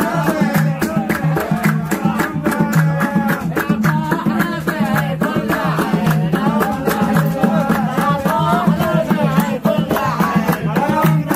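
Yemeni Baydani sharh dance music: a man singing over a steady percussive beat.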